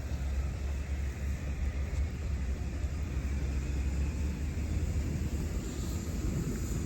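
Steady city street ambience dominated by traffic: a deep, continuous rumble of passing vehicles under a wash of tyre and street noise, the low rumble easing a little near the end.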